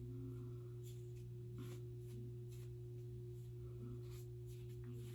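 A comb pulled repeatedly through the synthetic fibres of a wig, giving a string of short, faint brushing strokes about twice a second over a steady low electrical hum.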